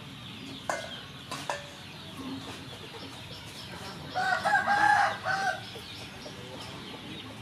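A rooster crowing once about four seconds in: a call of about a second and a half, broken into several notes. It is preceded by two short, sharp sounds about a second in.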